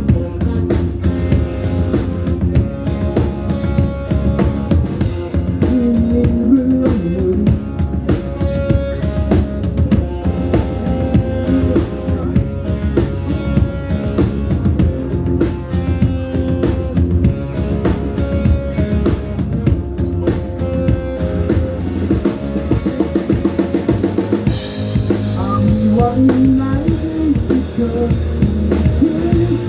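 Rock band playing live without vocals: a drum kit with bass drum and snare beating steadily under bass and electric guitar. The drumming thins out briefly before a cymbal crash near the end.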